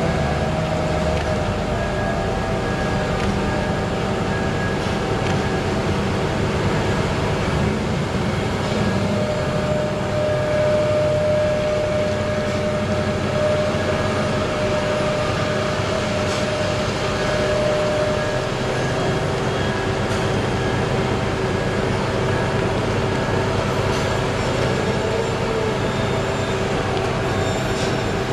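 BelAZ 75710 mining dump truck moving slowly, its twin-diesel electric drive running with a steady drone and a steady high whine that is strongest in the middle.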